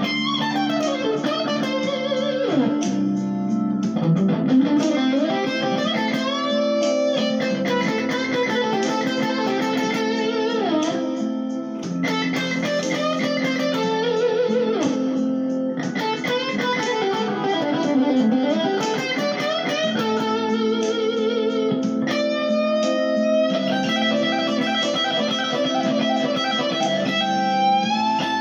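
Gibson Les Paul electric guitar playing a minor blues solo: single-note lead lines with string bends and wide vibrato, over sustained accompanying chords.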